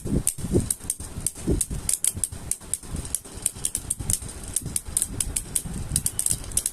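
Beyblade Burst spinning tops spinning and colliding in a plastic stadium: rapid, irregular clicks and knocks as they strike each other and the stadium wall.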